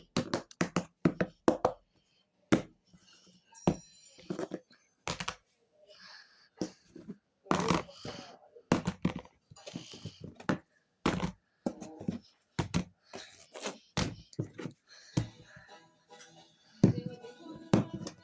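Phone alarm ringtone made of short, clipped sounds in an irregular rhythm: knock-like hits and brief voice-like snippets with gaps of silence between them.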